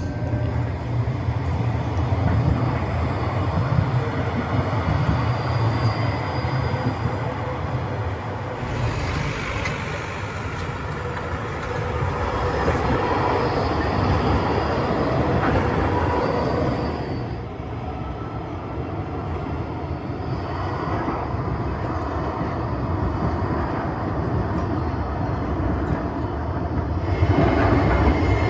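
Low-floor city trams running along street tracks, a low rumble mixed with street traffic. The recording cuts abruptly to new scenes about 9 seconds in, about 17 seconds in and near the end.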